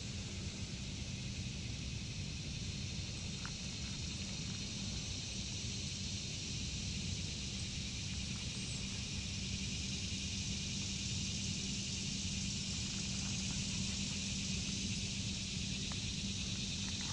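Steady outdoor background: a continuous high-pitched insect chorus, with a low steady hum beneath it.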